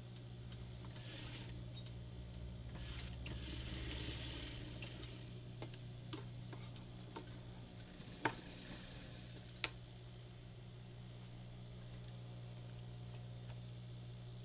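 Cloth rustling for a few seconds, then scattered ticks and two sharp clicks a little over a second apart, over a steady low hum.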